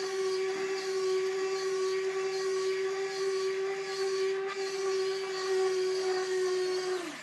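Electric retract units of a model Cessna's landing gear running as the gear swings down to extended: a steady whine for about seven seconds that drops slightly in pitch just before it stops.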